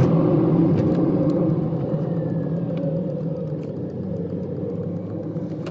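Car engine and road noise heard from inside the cabin, easing off as the car slows to pull into a filling station, with faint regular ticking.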